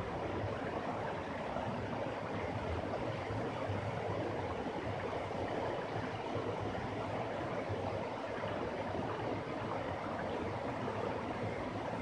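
Small waterfall cascading over rocky ledges into a pool: a steady, unbroken rush of falling water.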